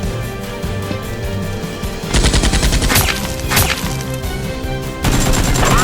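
Rapid machine-gun fire sound effects over background music: one burst about two seconds in, and another near the end.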